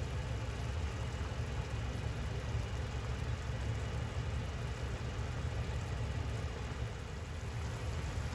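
Chicken and fried tofu simmering in a soy-sauce broth in a frying pan on a gas stove: a steady bubbling over a constant low rumble.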